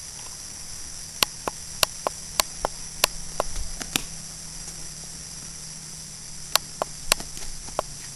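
Night insects chirring in a steady high shimmer, with a faint low hum beneath and a scattering of sharp clicks.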